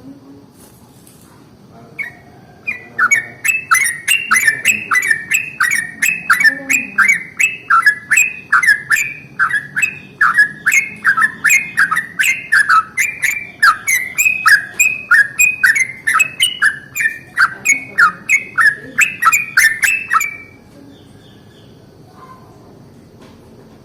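Yellow-vented bulbul (trucukan) singing one long unbroken run of quick, sharp notes, each sliding down in pitch, at about two to three notes a second. The run starts about two seconds in and stops abruptly near the end, leaving only faint background.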